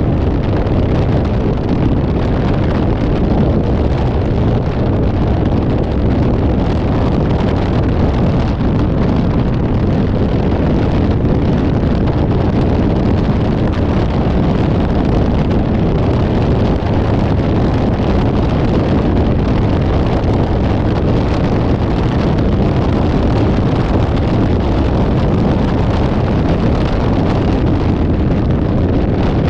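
Loud, steady wind and road noise from a moving vehicle, with wind buffeting the microphone and no horn or other distinct event standing out.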